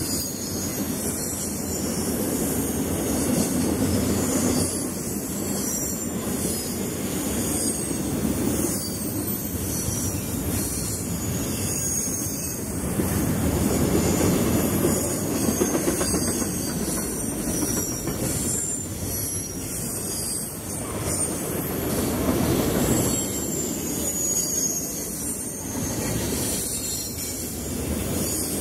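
CSX double-stack intermodal freight train rolling past: a steady rumble of container cars, with the wheels squealing on the rails. The sound swells about halfway through as a mid-train CSX locomotive passes.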